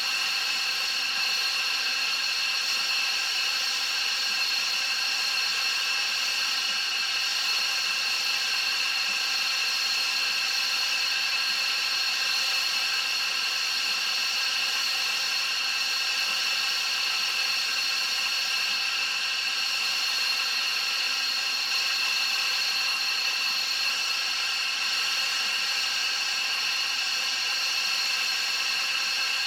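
F-16 jet engines running at ground idle: a steady, high-pitched whine made of several held tones.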